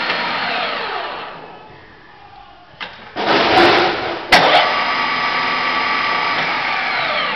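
MAS radial drilling machine's spindle drive running with a steady whine, then winding down with falling pitch within the first two seconds. After a click, a short loud rushing burst and a sharp click near the middle, the drive runs steadily again with a whine.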